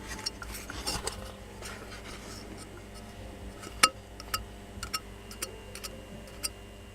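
Light clinks and clicks of small metal parts, washers and a bearing, being handled and fitted onto a vacuum cleaner motor's armature shaft; the sharpest click comes a little under four seconds in.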